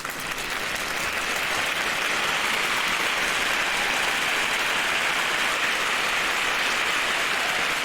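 Steady applause, a dense patter of many hands clapping, building up over the first second or two and then holding even.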